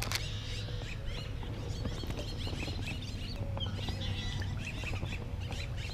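Small birds chirping and twittering in the background, many short calls overlapping, over a low steady hum.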